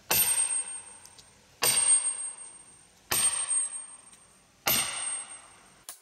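Sledgehammer striking a steel felling wedge driven into the saw cut of a tree trunk: four ringing metallic clangs about one and a half seconds apart, each ringing on for about a second. The wedge is being driven to widen the cut and force the tree to lean toward its fall.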